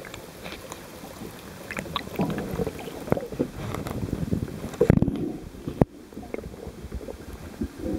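Underwater water noise against a moving camera housing: irregular sloshing and gurgling with scattered knocks and crackles, loudest about five seconds in, with a sharp click just before six seconds.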